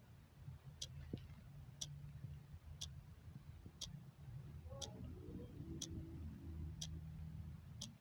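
Clock ticking once a second, each tick a short, sharp click, over a low steady hum.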